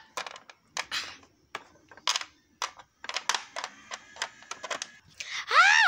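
Small plastic toy figurines handled and knocked together by hand, making a run of irregular clicks and taps. Near the end a high-pitched voice starts squealing in arching rises and falls.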